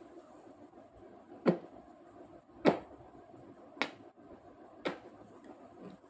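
House cat snoring in its sleep, a short sharp snort about once a second: four clear ones and a fainter fifth near the end.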